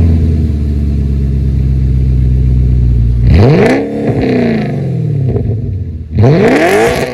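Audi RS4 B7's naturally aspirated 4.2-litre V8 exhaust, Stage 1 with a sport air filter, idling steadily just after start-up. It is then blipped twice, about three seconds apart, the revs rising sharply and falling away each time.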